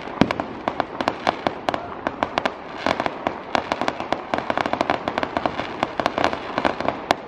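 Fireworks at a display going off in a dense, unbroken stream of sharp cracks and pops, many a second.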